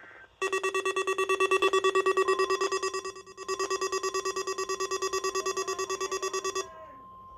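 Weather radio receiver's alarm buzzing in rapid pulses for about six seconds, set off by the NOAA Weather Radio weekly test. Under it, from about two seconds in, the broadcast's steady warning alarm tone runs and carries on alone after the buzzing stops.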